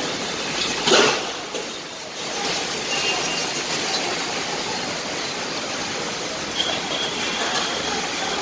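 Steady rushing hiss of heavy monsoon rain and wind, with a louder swell about a second in.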